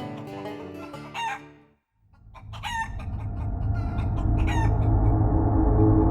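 Plucked banjo-style music ends with a sudden stop less than two seconds in; then a low, ominous rumbling drone swells steadily louder while a chicken lets out sharp squawking cries, twice.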